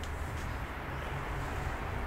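Steady low rumble and hiss of background noise, with a couple of faint clicks in the first half-second.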